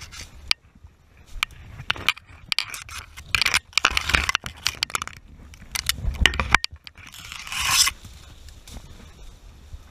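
Branches and leaves scraping and brushing past while forcing a way through dense brush, with twigs crackling and snapping in irregular bursts. A longer, louder scrape comes about three-quarters of the way through.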